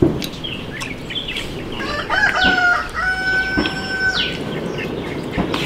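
A rooster crows once, starting about two seconds in with a few rising notes and then holding one long steady note for about a second before breaking off. A few sharp clicks and knocks come before and after it.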